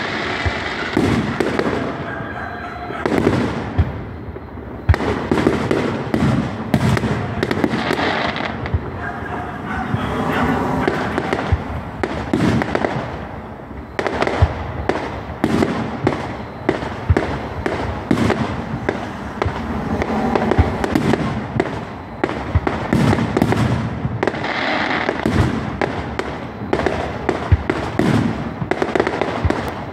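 Fireworks display: aerial shells bursting one after another in a dense run of bangs and crackles.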